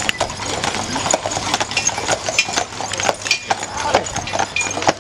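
Shod hooves of a team of draft horses clip-clopping unevenly on asphalt as they pull a wagon past.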